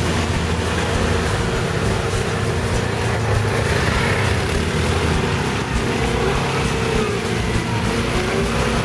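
Quad bike (ATV) engines running at low revs, with small rises and falls in pitch as a quad pulls slowly through deep mud.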